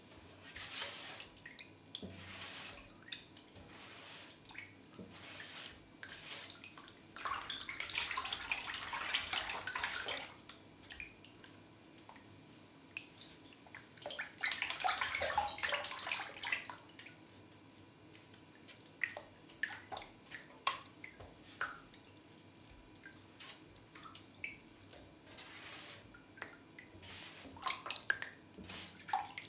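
Hands swishing and splashing water in a stainless steel tray, stirring slime powder into it, with two longer stretches of sloshing and many short splashes and drips in between.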